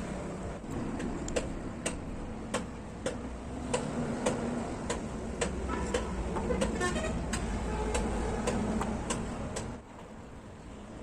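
A steady run of sharp taps, about two a second, over a low background rumble, with a short rattle near the middle; the tapping stops about a second before the end.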